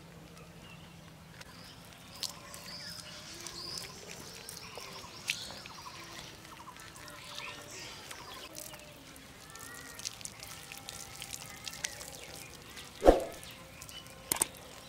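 A thin stream of water pours over soapy hands and splashes and drips onto the soil, while small birds chirp in the background. A single sharp knock comes near the end.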